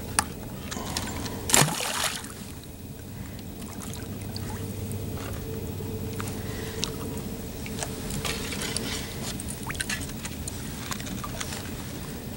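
Pond water sloshing and dripping as a person wades and lifts plastic duck decoys out of the water, with scattered small drips and splashes and one sharper knock about a second and a half in.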